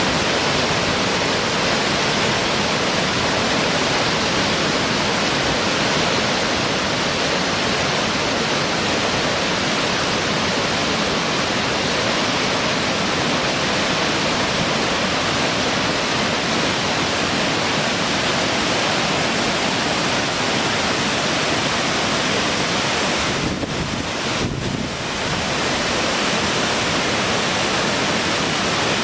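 Waterfall: a steady rush of falling water, with two brief dips in level about 24 seconds in.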